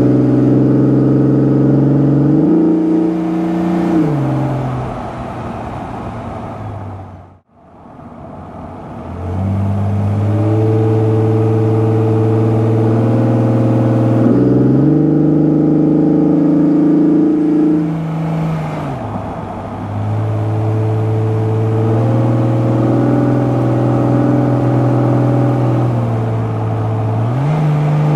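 Opel Omega 3.2-litre 24-valve V6 engine and Jetex aftermarket exhaust under way, a steady engine note whose pitch steps down and up several times as the revs change. About seven seconds in the sound cuts out briefly and picks up again.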